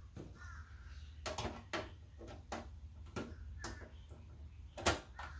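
The top panel of a desktop PC case being slid back into place: a run of light clicks and knocks with a brief squeaky scrape near the start, and one sharper knock near the end as the panel seats.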